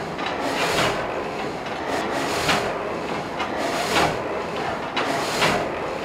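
Frame saw of a Dutch wind-powered sawmill cutting a log: the reciprocating frame of vertical blades rasps through the wood about once every second and a half, four strokes, over a steady machinery rumble.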